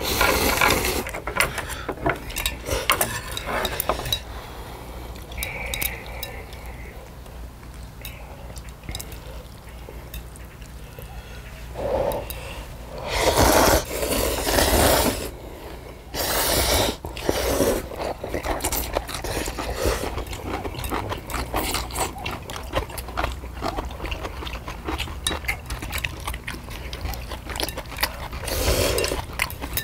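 People slurping and chewing spicy instant jjamppong noodles, with chopsticks and tongs clicking against metal plates and the pot. Several loud slurps come near the middle and once more near the end.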